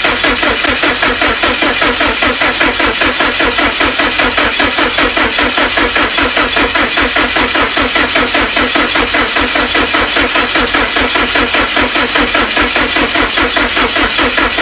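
2007 Subaru STi's freshly rebuilt turbocharged flat-four being cranked over on the starter, with even compression pulses about six times a second and no sign of catching: a new engine that cranks but does not fire.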